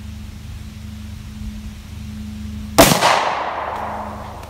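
A single shot from a Tokarev pistol, about three seconds in, with an echo that dies away over about a second and a half.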